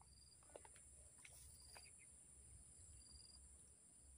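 Near silence: faint outdoor background with a steady high hiss, short faint high chirps about every second and a half, and a few faint ticks in the first two seconds.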